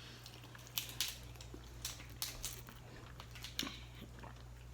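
Quiet eating of a seafood boil: scattered sharp clicks and cracks, with the most distinct about a second in, over a low steady hum.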